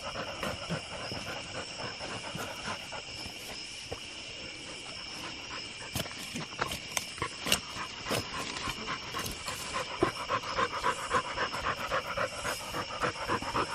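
A dog panting close by, in quick repeated breaths that get louder and faster in the last few seconds, over a steady chorus of night insects.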